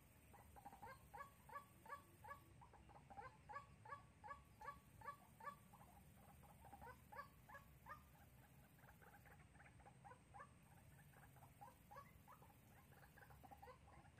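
Decoy white-breasted waterhen calling: a faint, fast series of short, repeated notes, about three a second, that grows weaker after about nine seconds.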